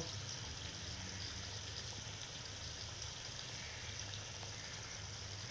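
Pot of mutton-and-spinach curry simmering in oil, a steady soft sizzle and bubble with a low hum underneath.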